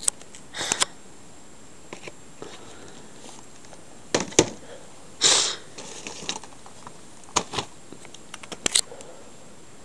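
Boxed action-figure packaging being handled: scattered light clicks and knocks of cardboard and plastic, with a brief rustling scrape about five seconds in.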